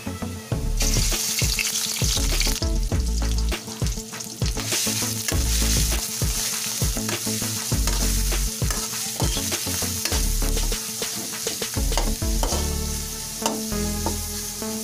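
Diced pork lung sizzling in hot oil in a metal wok. The sizzle starts about a second in as the meat goes in, and a spatula scrapes and knocks against the pan as it is stirred.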